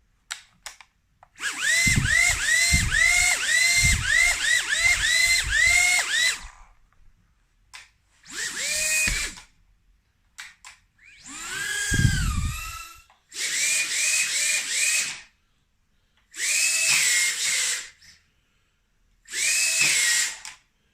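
Tiny brushless motors of an Emax Tinyhawk micro FPV drone whining as they spin the propellers up and down in throttle blips. For about five seconds the pitch rises and falls about twice a second. Five shorter bursts of a second or two follow, separated by silence.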